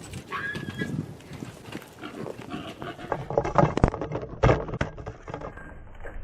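Wild hogs making short, irregular grunting noises.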